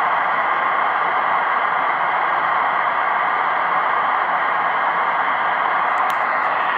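Tecsun PL-680 shortwave receiver on 7142 kHz lower sideband giving a steady hiss of band noise, with no station transmitting. A few brief clicks come near the end.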